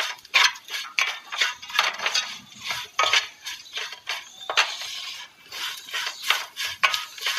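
Spoon scraping and clinking against a metal pot in quick, irregular strokes while stirring sautéed onions and ground spices.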